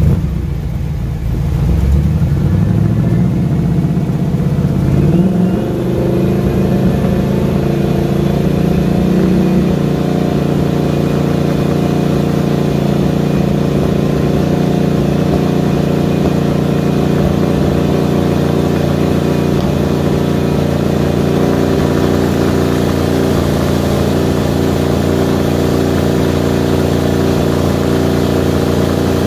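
Twin-turbocharged 347 stroker small-block Ford V8 running on a hub dyno during steady-state tuning. The engine note climbs over the first few seconds, then settles into a steady held speed from about ten seconds in while the dyno changes the load.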